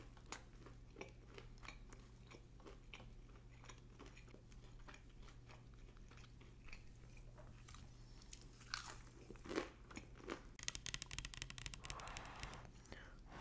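Close-miked eating sounds: biting, chewing and crunching on crunchy food, quiet but clear. A dense run of rapid crunches comes near the end, followed by a short sip of tomato soup from a paper cup.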